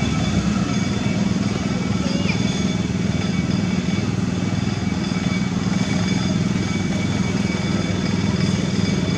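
Steady low mechanical drone with no change in level, and faint high steady whines above it.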